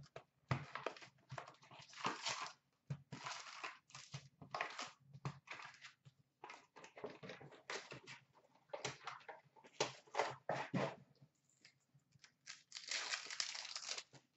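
Hockey card packs and their cardboard box being handled: a run of short, irregular crinkling and rustling noises, with a longer crinkling tear near the end as a foil pack is ripped open.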